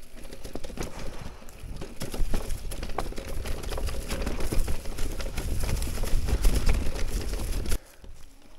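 Electric mountain bike riding down a rough trail: tyres crunching over dry leaves and stones, with frequent knocks and rattles from the bike and a low rumble. The noise drops off sharply near the end as the trail smooths out.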